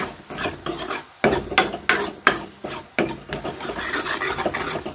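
Metal spoon scraping and stirring onions and spices frying in oil in a metal kadhai, a run of irregular scrapes against the pan.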